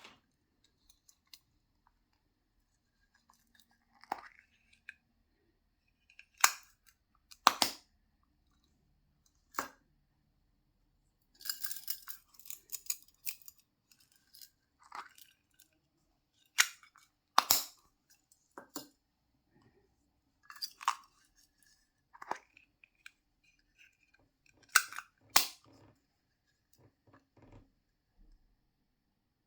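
Handling noises from unboxing small surprise-box toys: scattered crisp clicks, taps and crinkles of packaging, several in close pairs, with a denser crackling stretch about twelve seconds in.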